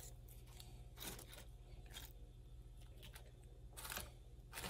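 Faint crackling and crunching of fried pork rinds and tortilla chips being placed and pressed by hand onto a pile of nachos, a few short crackles standing out about a second in and near the end, over a low steady hum.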